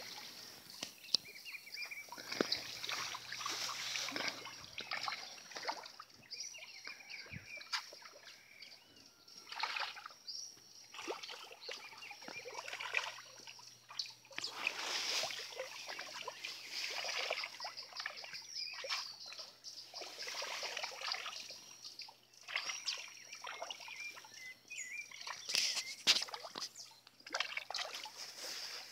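Tambaqui fish splashing at the water surface as they snatch feed, in irregular bursts of splashing and sloshing: a feeding frenzy.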